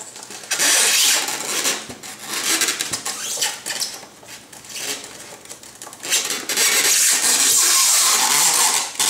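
Plastic packing wrap rustling and crinkling as hands work inside it around the statue, in uneven bursts, with a long loud stretch near the end.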